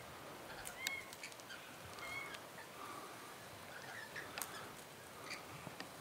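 Faint short chirping calls from rosellas at a bird feeder, with a few sharp clicks mixed in.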